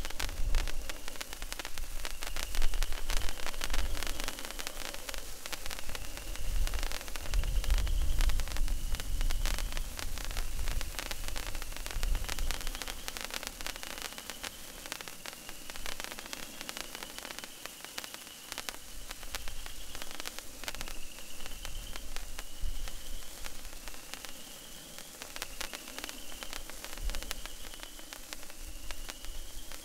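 Patriot Sticks sparkler burning, giving a steady fizzing hiss full of fine, rapid crackles from the spitting sparks.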